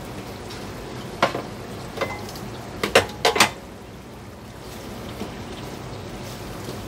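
Chicken liver simmering and sizzling steadily in sauce in a frying pan, with several sharp clicks and knocks of kitchenware between about one and three and a half seconds in, then a wooden spoon stirring the pan near the end.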